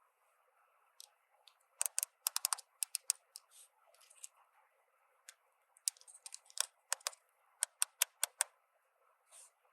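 Small hard plastic toy pieces being handled: quick sharp clicks and taps in two flurries, about two seconds in and again around six to eight seconds in.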